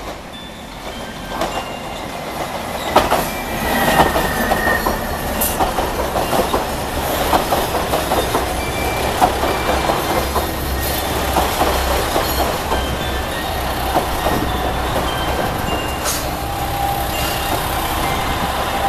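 JR Shikoku 2000 series diesel train pulling into the platform and running past, wheels clacking over the rail joints over the low hum of its diesel engines. It grows louder over the first few seconds as the front cars come alongside, then holds steady.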